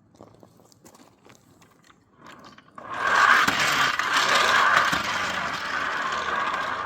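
Live steam railroad turntable deck being rotated on its ring: a few light clicks, then from about three seconds in a loud, sustained metallic grinding and scraping from the rollers and a howling bearing, the deck not yet running freely.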